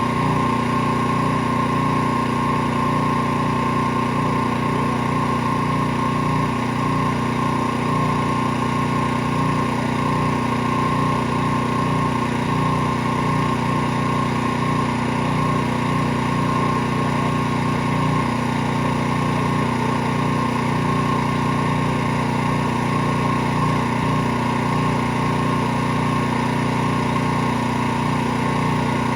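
Gas-engine pressure washer running steadily at constant speed, an even drone with no change in pitch or level.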